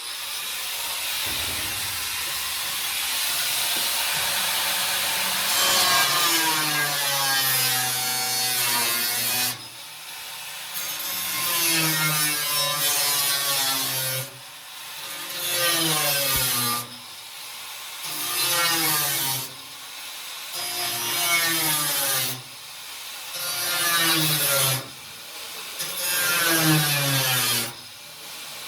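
A power tool working sheet metal: a steady run for the first ten seconds, then repeated bursts about two seconds long with short pauses between them, its pitch wavering within each burst.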